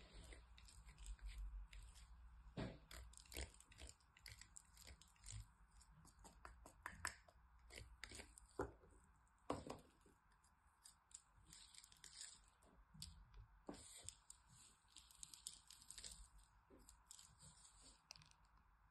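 Faint, crisp scraping of a bar of soap being grated on a small metal box grater, in quick irregular strokes with small clicks. The strokes thin out near the end.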